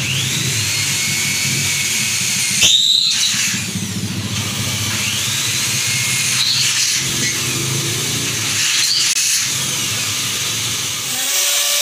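Corded electric drill drilling overhead into an aluminium sliding-door frame, its motor whining up and easing off in several runs, with a short loud burst about three seconds in.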